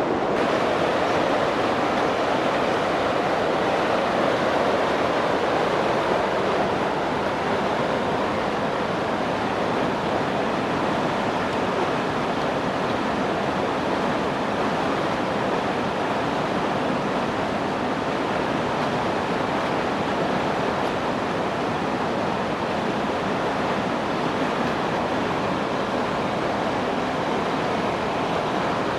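Webuye Falls on the Nzoia River: falling water rushing in a steady, loud, unbroken roar.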